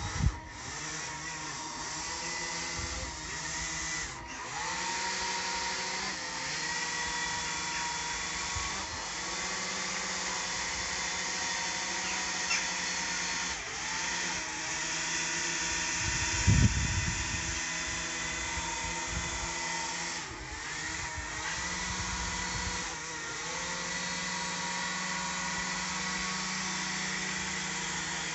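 Small electric fan motors of a radio-controlled toy hovercraft whining, their pitch dropping and rising again several times as the throttle is worked. About two-thirds of the way through there is a brief low rumble.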